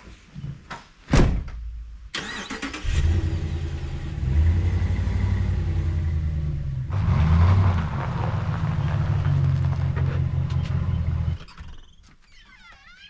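A car engine running steadily, a low even hum that cuts off abruptly about eleven seconds in. Before it, in the first two seconds, a couple of sharp knocks.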